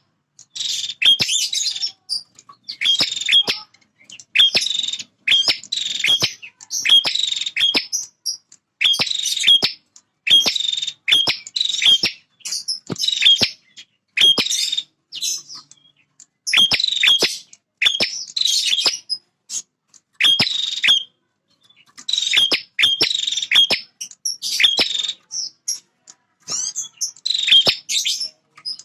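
Male prinia (prenjak) calling vigorously in short, rapid bursts of high, sharp notes, a burst every one to two seconds with brief pauses between runs: territorial calling of the kind used to provoke rival prinias.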